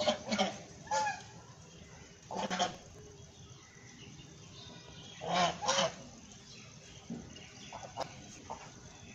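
Domestic white goose honking: a series of loud, separate honks, with a pair of honks about five and a half seconds in and a few quieter short calls near the end.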